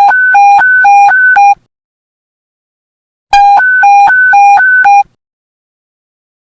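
Police panic-button alert tone: a fast low-high two-tone beeping, about eight alternating beeps in a second and a half, sounded twice with a short pause between.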